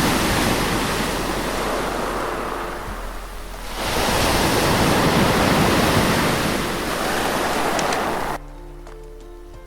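Loud rushing noise like surging water, dipping about three and a half seconds in and swelling again, then cutting off suddenly near the end, leaving soft background music with held notes.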